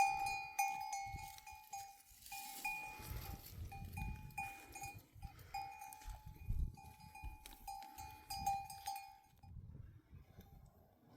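A metal neck bell on a herd animal clanking irregularly as the animal walks, many uneven strokes that stop about nine and a half seconds in. Low thumps sound underneath.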